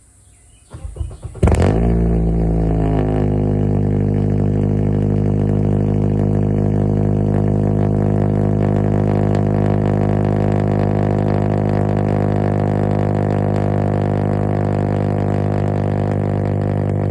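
7th-generation Honda Accord engine cold-starting: a short crank, then it catches about a second and a half in, flares up in revs, and settles within a couple of seconds into a steady, loud high idle.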